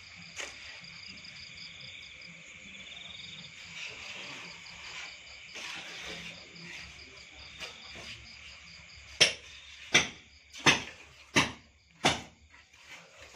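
Crickets chirping steadily. From about nine seconds in comes a run of sharp, evenly spaced knocks, roughly one every 0.7 seconds, louder than the chirping.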